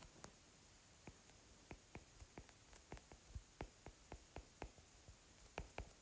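Faint stylus tip tapping and clicking on a tablet screen while letters are handwritten, irregular taps at about three a second.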